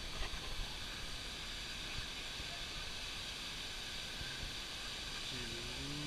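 Steady rushing hiss of a waterfall plunging into its pool, with a person's voice briefly near the end.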